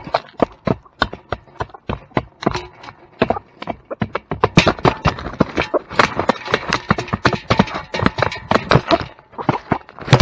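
A rapid, irregular run of sharp clicks and knocks, several a second, growing busier about four seconds in.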